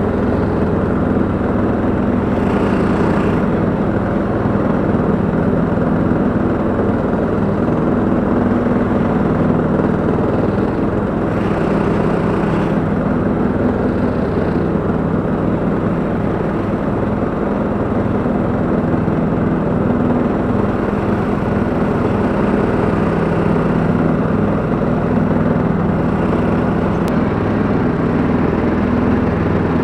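Husqvarna LTH 174 lawn tractor's petrol engine running steadily while driving and pulling a flail mower through grass.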